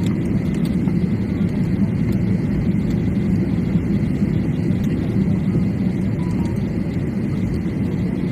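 Steady low rumble of a flydubai Boeing 737 jet airliner heard from inside the cabin, even in level throughout, with a faint steady high tone above it.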